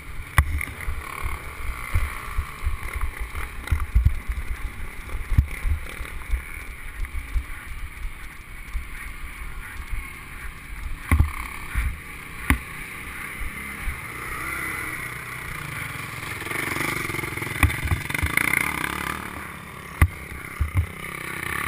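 A 125 cc two-stroke dirt bike's engine running at low speed over a rough track, with frequent low knocks and bumps on the helmet-mounted microphone. It gets louder for a few seconds toward the end.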